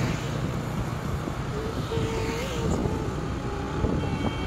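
Steady engine and road noise from a vehicle travelling along a highway, with passing traffic; a short vehicle horn sounds faintly near the end.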